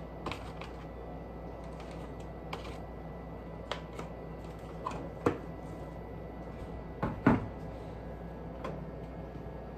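Light plastic clicks and taps as a lidded plastic egg holder is handled, then a louder knock about seven seconds in as a high kitchen cupboard door is opened.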